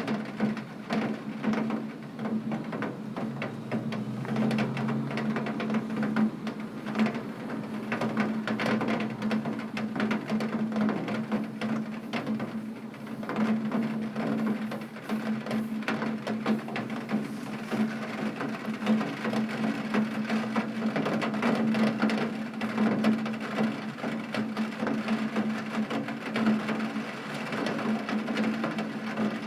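Heavy rain striking a window pane: a steady, dense patter of countless drop impacts on the glass.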